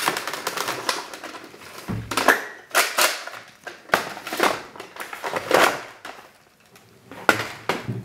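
Hard plastic toy blaster being handled: an irregular string of clicks, knocks and clatter as the magazine is worked out of a Nerf Retaliator and the blaster is set down, with a quieter stretch near the end.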